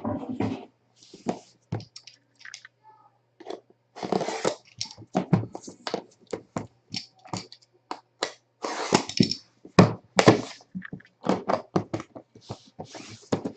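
Trading-card box packaging being opened and handled: many short clicks and knocks, with bursts of rustling and tearing about four seconds in, about nine seconds in and near the end.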